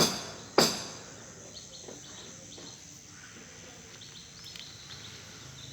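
A regular series of sharp strikes ends with two blows about half a second apart, each dying away quickly. After them comes a steady outdoor background with short high bird chirps.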